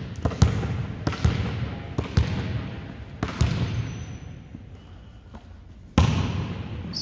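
Volleyball impacts ringing in a gym: sharp thuds of the ball about once a second, dying away for a couple of seconds, then a sudden loud hit about six seconds in.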